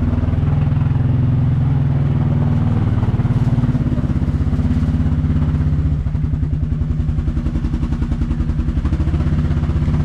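Can-Am Outlander 700 Pro XU ATV engine running while riding. About six seconds in its note falls to a lower, evenly pulsing run.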